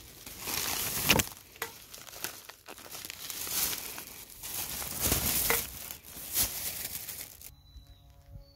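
Crinkling and rustling handling noise with scattered sharp clicks, stopping abruptly near the end.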